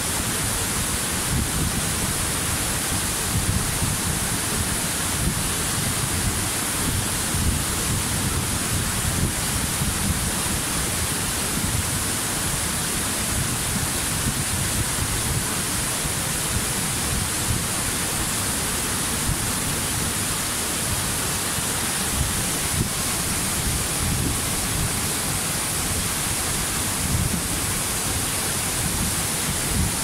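Waterfall cascading down rock slabs: a steady rushing of falling water with a low rumble underneath.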